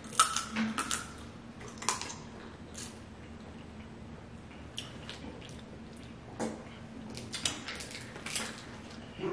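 Close-up eating sounds: boiled seafood being picked apart by hand in plastic bags, with scattered clicks, crackles, plastic crinkles and wet squishes, busiest at the start and again near the end.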